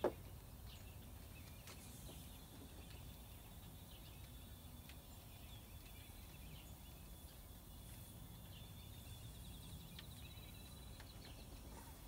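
Faint outdoor background: a low, steady wind rumble with scattered bird chirps, and one sharp click right at the start.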